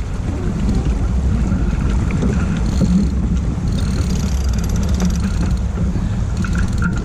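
Steady wind rumbling and buffeting across the microphone aboard a sailboat under way, heaviest in the low end.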